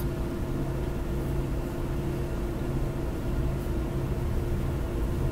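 A steady low hum with a few held tones over a faint hiss, unchanging throughout, like ventilation or electrical background noise.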